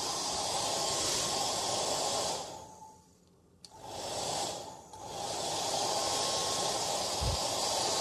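Hair dryer blowing: a steady rushing hiss with a faint whine. About two seconds in it fades to near silence for about a second, then a click sounds and the air comes back up, dipping once more before running steadily again.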